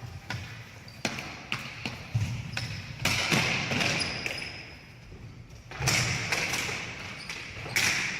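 Ball hockey play: a string of sharp knocks and clacks of sticks and a ball on the playing surface, with two longer noisy stretches in between.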